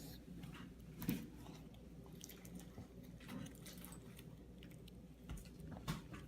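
Faint squishing and small sticky clicks of homemade glitter-glue slime being squeezed and stretched in the hands.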